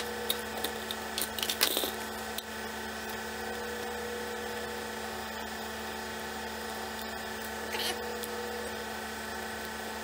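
Brass ammo casings clinking against each other and the plastic pill-bottle mold as they are dropped in, a few sharp clicks in the first two seconds and one more near the end. Under them runs a steady hum.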